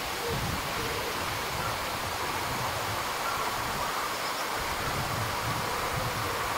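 Steady outdoor background noise: an even hiss with a low, fluctuating rumble and no distinct calls or impacts.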